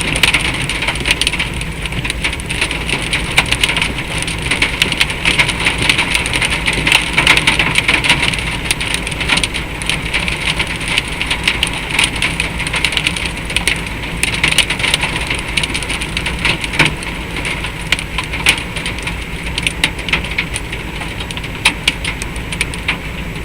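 Hail falling hard: a steady hiss of falling ice, with a dense scatter of sharp clicks as hailstones strike hard surfaces.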